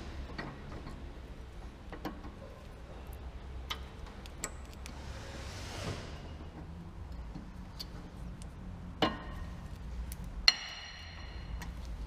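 Light metallic clicks and taps of a Nissan Qashqai J11's rear brake pads and their clips being fitted into the caliper carrier, with two sharper clinks near the end, the second ringing briefly, over a low steady hum.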